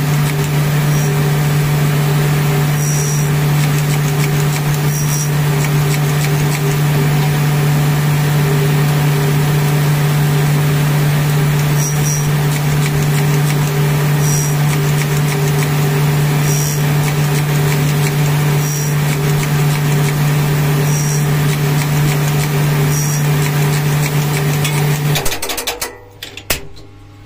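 CNC bangle-cutting machine running with a steady motor hum while its spinning cutter cuts a notched pattern into a gold bangle, with a faint click about every two seconds. The machine stops suddenly near the end, leaving light clinks.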